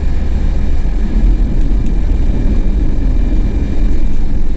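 Steady low rumble of a vehicle cruising on an expressway: engine and tyre noise heard from inside the cab.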